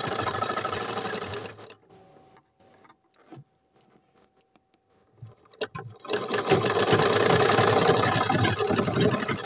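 Tailoring sewing machine stitching cloth at a fast, even rate. It stops about a second and a half in, leaving only a few light clicks for about four seconds, then starts again about six seconds in and runs on.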